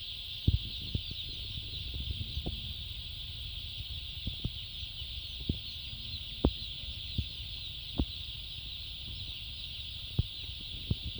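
A shed full of broiler chickens giving a steady massed chirping of many birds at once, with scattered short knocks and a low rumble underneath.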